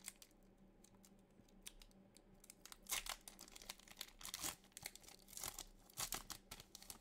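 Pokémon trading-card booster pack wrapper being torn open and crinkled by hand: faint, scattered crackles of the foil wrapper that grow louder and busier from about three seconds in.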